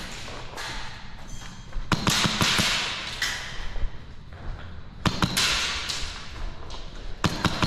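Sharp clicks and knocks of an airsoft game, in three quick clusters about two, five and seven seconds in, with a hiss between, echoing in a large concrete hall.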